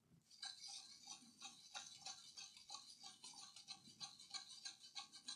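Faint, quick scratching strokes of a small brush scrubbing a laptop motherboard with alcohol, the bristles rubbing over the EC chip and its pins; it starts about half a second in.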